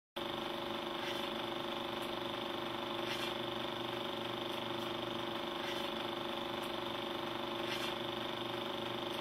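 Old film projector sound effect: a steady mechanical whir with a constant hum and a few faint clicks, starting and stopping abruptly.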